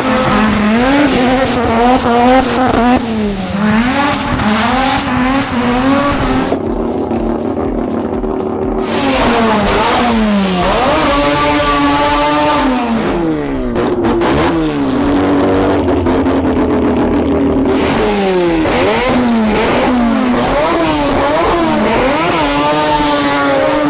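Mazda RX-7's 690-horsepower twin-rotor rotary engine revving hard, its pitch repeatedly climbing and then dropping through shifts and lift-offs, with abrupt jumps in the sound between takes.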